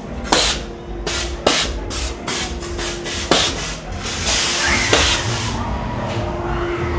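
Haunted-house pneumatic air effects: a string of short, sharp hissing blasts of compressed air, about ten of them, then a longer hiss about four to five seconds in. A low rumble and a steady hum run underneath.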